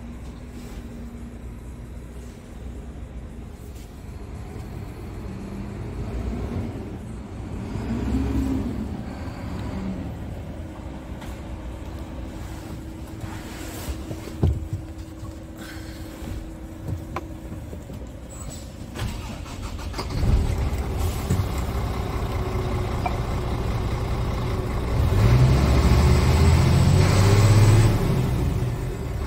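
Scania R tractor unit's diesel engine, heard from inside the cab, revved while standing in neutral. It runs quietly at first, rises about twenty seconds in, and is held loudest at high revs from about twenty-five seconds in, easing just before the end.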